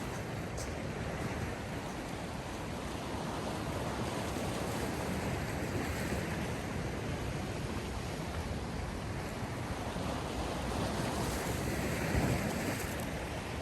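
Sea waves washing in a steady rush, swelling a little about halfway and again near the end.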